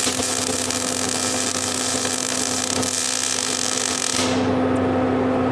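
MIG welding arc from an ESAB Migmaster 250 sizzling steadily during a short touch-up pass on a chain-hook weld, cutting off about four seconds in. A steady hum runs underneath throughout.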